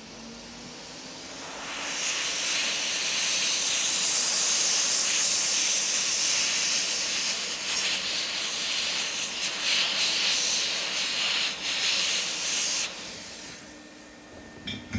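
Heat gun blowing hot air onto heat shrink tubing: a steady airy hiss that builds up over the first couple of seconds as the fan spins up, then falls away near the end when it is switched off.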